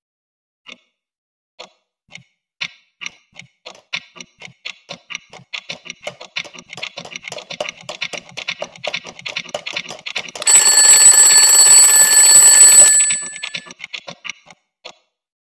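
Twin-bell alarm clock ticking, slowly at first and then faster and faster. About ten seconds in, its bell rings loudly for about two and a half seconds and stops, followed by a few last ticks.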